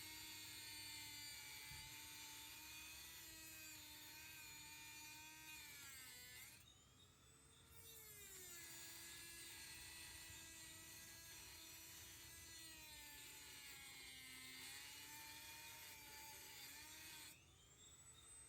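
Dremel 200 rotary tool with a 1.5-inch cutoff wheel whining at high speed while cutting screwdriver slots into the heads of snapped-off security bolts. Its pitch wavers as the wheel bites, falls away about six seconds in and spins back up, then drops again near the end.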